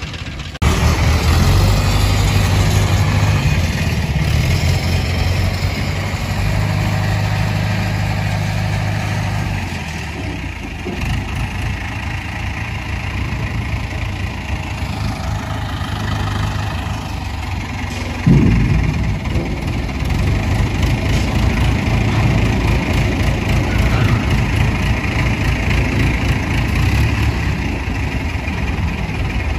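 Diesel engine of a hydra pick-and-carry crane running steadily as it hoists a dump-truck tipper body. The engine note eases a little about ten seconds in, and there is a sharp knock about eighteen seconds in.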